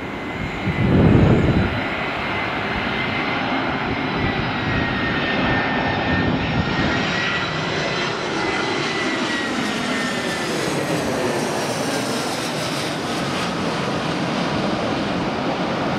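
Airbus A320's twin CFM56 turbofans at approach power as the airliner descends on final and passes overhead: a steady jet roar with a high fan whine that slowly falls in pitch in the second half as it goes over. About a second in, a gust of wind rumbles on the microphone.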